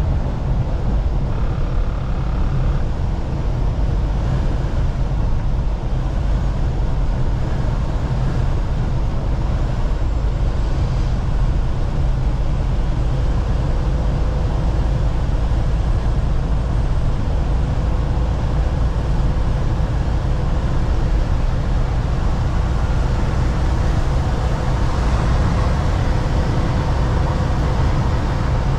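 Semi truck driving on the highway, heard from inside the cab: a steady low rumble of the diesel engine and tyre and road noise.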